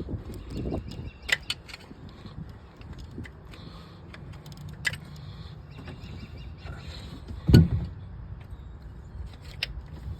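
Scattered clicks and knocks of hand work on an engine: tools and small metal parts being handled. There is one louder thump about seven and a half seconds in.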